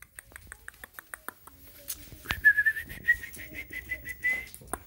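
A person whistling one steady high note for about two seconds, wavering at its start. Before it comes a run of quick faint clicks.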